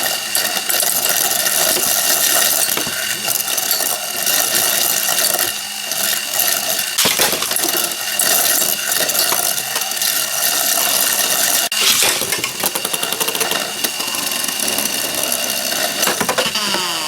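Spinning Beyblade tops grinding and rattling steadily against the plastic Tornado Beystadium, with a few sharp clicks of impacts.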